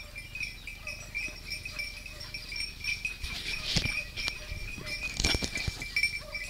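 Dry brush rustling and twigs crackling as something pushes through dense scrub, in a few sharp bursts about four and five seconds in. A faint steady high whine runs underneath.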